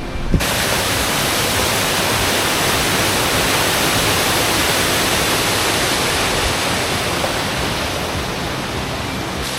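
Waterfall heard close up: a loud, even rush of falling water that starts abruptly about half a second in and eases off slightly near the end.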